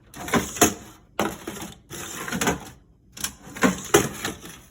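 Ice cubes clattering in a refrigerator freezer's ice bin, stirred or scooped, in several bursts of rattling clicks.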